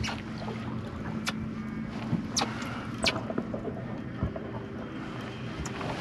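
Boat's outboard motor running steadily at trolling speed, with wind and water noise and a few sharp clicks scattered through.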